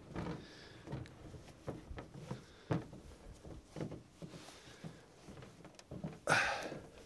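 Scattered soft rustling and light knocks of someone handling shoes and bedding in the back of a truck-bed camper, with a sharp click near three seconds in and a louder rustle about six seconds in.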